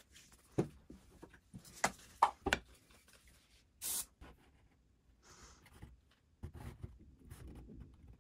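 MDF strips being handled on a plastic bench top: a few sharp knocks and clicks in the first three seconds, a short hiss just before four seconds in, then hands scuffing and rubbing as the glued mitre joint is pressed together.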